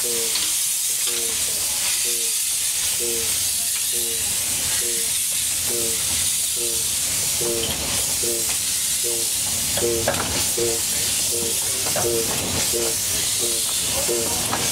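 Coal-fired 15-inch gauge 2-8-2 steam locomotive River Esk getting under way at low speed: a loud, steady steam hiss from the open cylinder drain cocks, with a regular beat of the engine working, a little under two a second.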